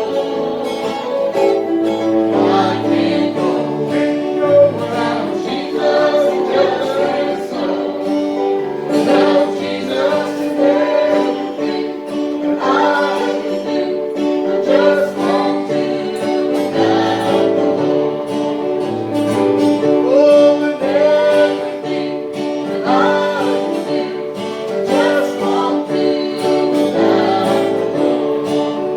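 Singing of a gospel song with guitar accompaniment.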